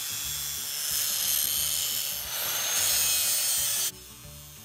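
DeWalt angle grinder grinding into a weld on a steel hammer head, throwing sparks: a steady, hissing grind that gets louder about a second in and cuts off suddenly near the end.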